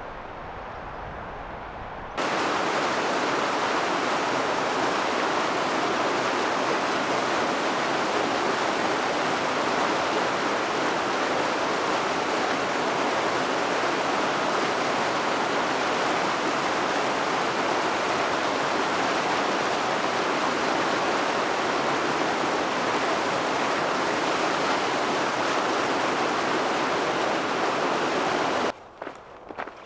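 Small mountain waterfall cascading over rock into a pool: a steady rush of water that starts abruptly about two seconds in and cuts off just before the end.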